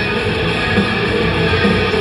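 Black metal band playing live: distorted electric guitars over drums in a dense, loud, steady wall of sound.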